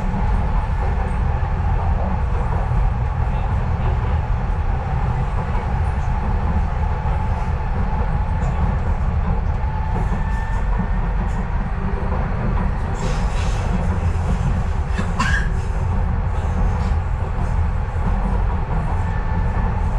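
Docklands Light Railway train running between stations, heard from inside the carriage: a steady low rumble of wheels and running gear. A few brief clicks and a short high squeak come about 13 and 15 seconds in.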